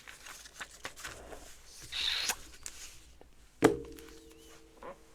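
Small LEGO pieces being handled: light clicks and ticks with a brief plastic rustle, then one sharp knock about three and a half seconds in that leaves a short ringing tone.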